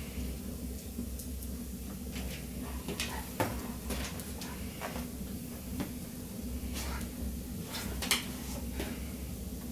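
Scuffling of a German Shepherd and a cat play-fighting: irregular short knocks, clicks and bumps, about a dozen scattered through, over a steady low hum.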